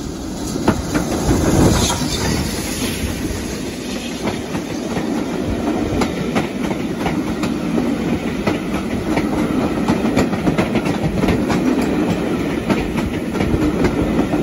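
BR Standard Class 9F steam locomotive 92134 passing close by, loudest about two seconds in. Its passenger coaches then run past, their wheels clicking over the rail joints in a steady rhythm.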